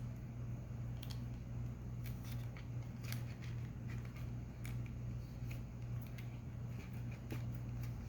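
Trading cards and their foil packs being handled: scattered light clicks and crinkles over a steady low hum.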